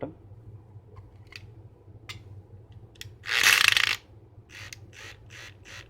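Small mechanical clicks and plastic handling sounds as a Kemei hair clipper is taken apart, with a short, loud scraping rattle just after three seconds in and a quick run of clicks near the end.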